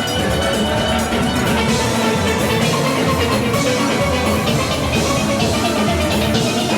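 A steel orchestra playing live: many steelpans ringing together over drum-kit and percussion rhythm, loud and continuous.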